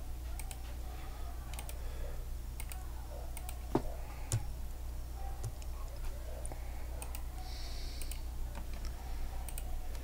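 Computer keyboard typing and mouse clicks: scattered, irregular clicks, two of them louder about four seconds in, over a steady low electrical hum.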